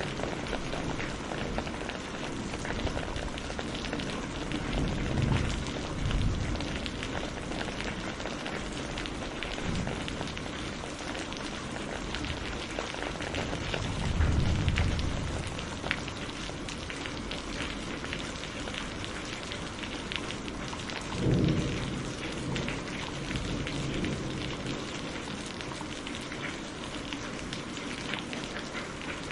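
Steady rain pattering on a surface, thick with fine drop ticks, with three deep swells of low rumble: about five seconds in, midway, and about two-thirds of the way through.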